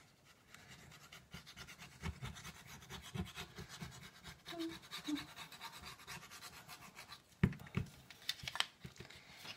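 Paper card being handled and pressed on a cutting mat while glue is squeezed onto it: faint rustling and scratching, with a few louder sharp taps near the end.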